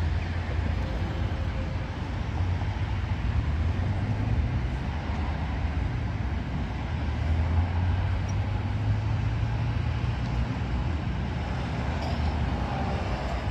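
Road traffic at a city intersection: cars driving through with a steady low rumble that swells a little about seven to nine seconds in.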